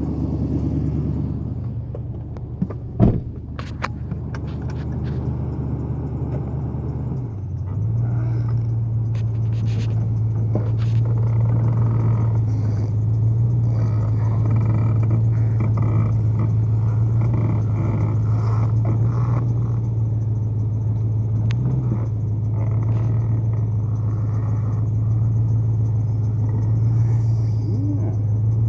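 A machine running with a steady low hum that becomes more even and a little louder about seven seconds in, with a sharp click about three seconds in and a few light knocks.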